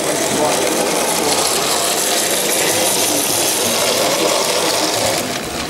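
Model railway locomotive running on its layout track, a steady mechanical whirring and rattling from its small electric motor, gears and wheels. The sound thins out suddenly about five seconds in.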